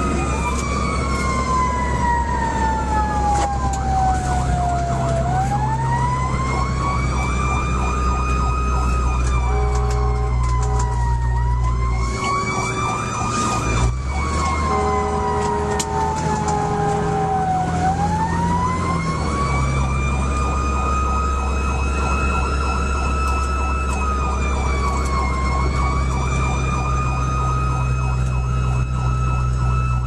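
Fire engine responding with its siren wailing, the pitch sliding slowly up and down, over the low drone of the truck's engine. About ten and fifteen seconds in, short horn blasts break in over the siren.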